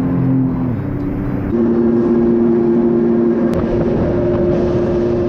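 Jet ski engine running at speed, with wind and water rushing past the camera's microphone. The engine note jumps to a higher, steady pitch about a second and a half in.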